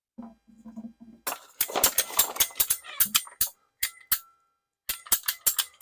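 A fast, irregular run of sharp clicks and clanks from hard objects being handled, some with a brief metallic ring. It starts about a second in and pauses briefly just after the middle.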